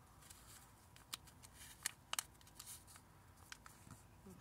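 A square of paper being folded and creased by hand: faint rustling with a few sharp crinkles, the loudest about two seconds in.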